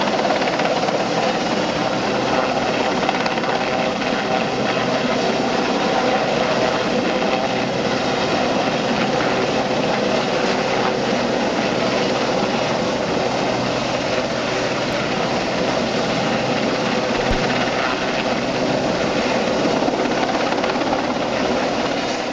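Westland Sea King rescue helicopter hovering low over the sea during a winch pick-up: its rotor and twin turbines running steadily and loudly.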